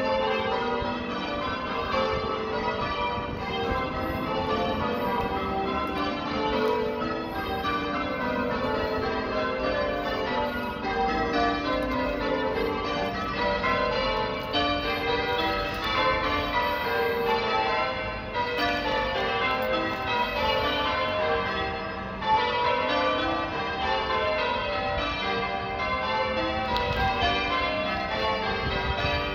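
Church tower bells ringing, a steady, unbroken stream of overlapping strikes at an even pace.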